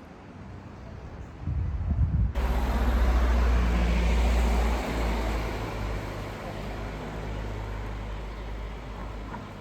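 A vehicle engine running with road noise. It comes in sharply about two seconds in, is loudest soon after, then eases off.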